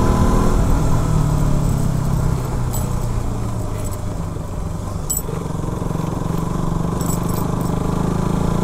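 KTM RC 200's single-cylinder engine running under way, with wind rumble on the microphone. The engine note eases off about two and a half seconds in and climbs again after about six seconds.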